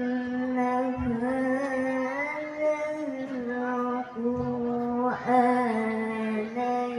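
A single voice chanting Quranic recitation (tilawah) in long held notes that bend and ornament slowly, with brief breath breaks about one, four and five seconds in.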